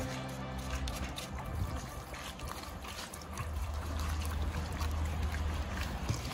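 Wet squishing and rubbing as hands squeeze seasoning from a packet and work it into a raw dressed bird in a metal bowl.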